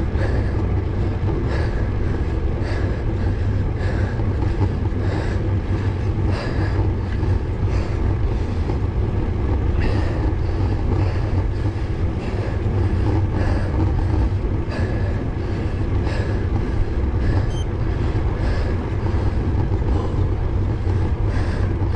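Road bike climbing at a steady pace: low wind rumble on the action camera's microphone over tyre hiss on tarmac, with a soft regular pulse about every two-thirds of a second.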